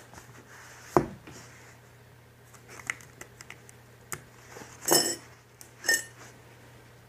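Spice containers and dishes being handled on a table while a bacon cure is mixed: a solid knock about a second in, a few light clicks, then two short clattering rattles near the end.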